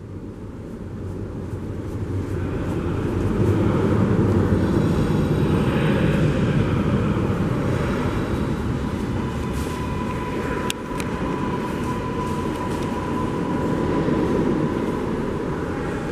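Subway train running in an underground station: a rumble that builds over the first few seconds and then holds steady, with a thin high whine coming in about halfway through and a single sharp click a little after.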